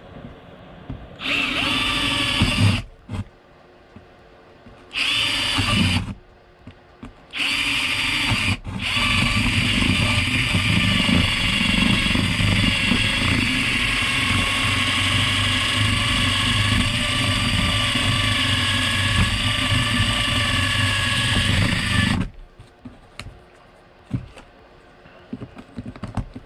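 Cordless drill boring into a wooden cabinet panel: three short bursts, then one long steady run of about thirteen seconds that stops suddenly. Small handling clicks follow.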